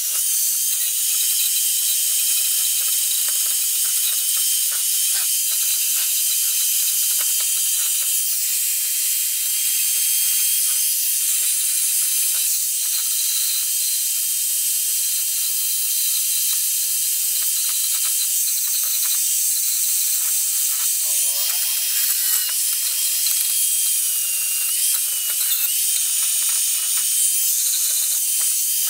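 Electric drill spinning a wire wheel against rusty steel pliers, a steady high scrubbing hiss over the motor's whine, which wavers in pitch as the brush is pressed on: the wheel is stripping the rust off.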